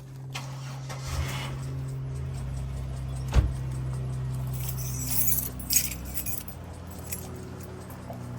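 Light metallic jingling in short clusters about five to six seconds in, with one sharp thump about three and a half seconds in, over a steady low hum.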